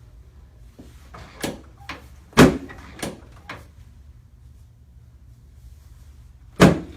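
Sharp knocks from a chiropractic adjustment on the treatment table. A quick run of them comes in the first few seconds, the loudest about two and a half seconds in, and another strong one comes near the end.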